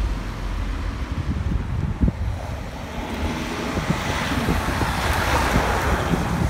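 Street traffic: a low steady rumble, with a vehicle's tyre and engine hiss swelling and fading about four to six seconds in as it passes.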